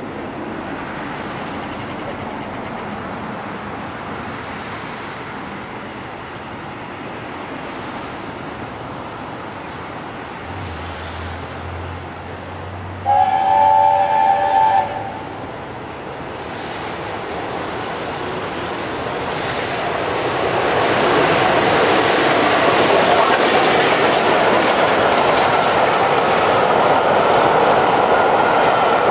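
LNER A4 Pacific steam locomotive approaching with a steady rumble, sounding its chime whistle once, a chord of several tones lasting about two seconds, about halfway through. After the whistle the train grows louder and stays loud as it runs past close by.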